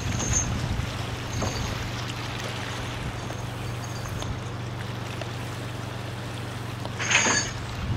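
A boom boat's engine running at a steady speed, a constant low drone, while it works the logs of a raft. About seven seconds in, a short high-pitched sound rises briefly over it.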